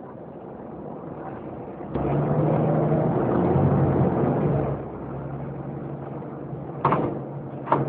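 Volvo B7TL bus's six-cylinder diesel heard from inside the passenger saloon. It grows much louder about two seconds in and runs hard under load for a few seconds, then eases back to a steadier, quieter run. Two short sharp knocks sound near the end.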